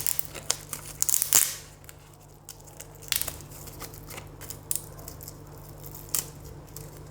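Hand-handling noises of a laptop CMOS coin-cell battery being removed and replaced: small sharp clicks, scratching and crinkling, densest in the first second and a half, then a few single clicks.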